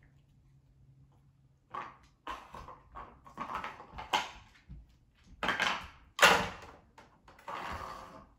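Plastic dog puzzle toys knocking and scraping on a hardwood floor as a husky puppy noses and pushes them, in irregular bursts starting about two seconds in.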